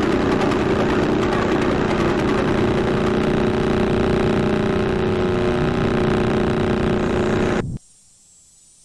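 A loud, dense, steady droning noise with several held low tones, cutting off suddenly near the end and leaving only a faint high hiss.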